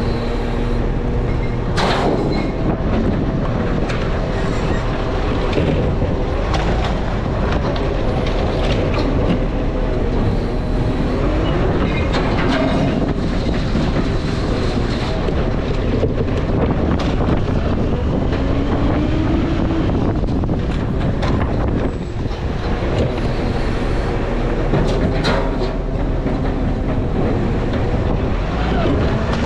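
Garbage truck's diesel engine running, its pitch rising and falling, with frequent clunks and rattles.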